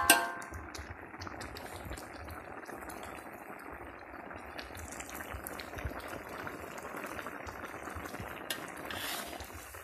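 Coconut-milk curry bubbling at a steady boil in a metal wok.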